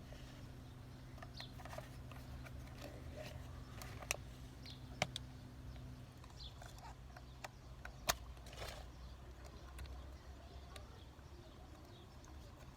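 Faint handling noises from working on a cooling duct and its insulation: a few sharp clicks and short rustles over a steady low hum.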